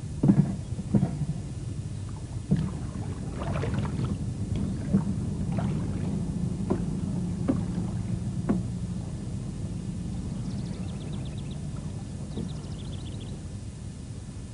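Small wooden boat being poled off from a jetty: knocks and water splashes from the pole, roughly one a second, over a steady low hum. Later come two short runs of rapid, high chirps.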